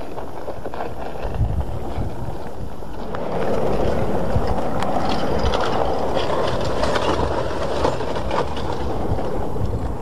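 Active basalt lava flow recorded on site: wind rumbling on the microphone, with crackling and clinking from the cooling lava crust as it breaks and shifts. The sound grows louder about three and a half seconds in.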